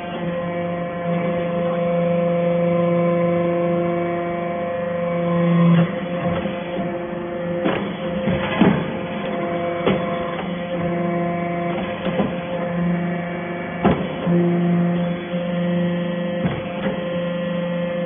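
Hydraulic briquetting press for stainless steel chips running: a steady hum from its hydraulic power unit that swells and drops back as the press works through its cycle, with about five sharp metallic clanks from the press in the second half.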